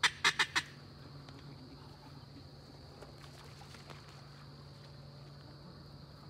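Steady high insect chirring over a marsh, with a low steady hum underneath. Four sharp clicks come in quick succession in the first half second.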